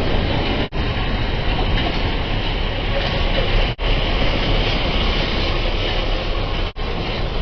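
Loud, steady rumbling noise of a heavy box truck driving past, heard through a security camera's microphone and cut by three brief dropouts.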